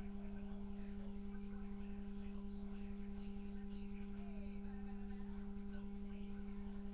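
A steady low hum at one unchanging pitch, with a fainter overtone an octave higher, and faint indistinct sounds underneath.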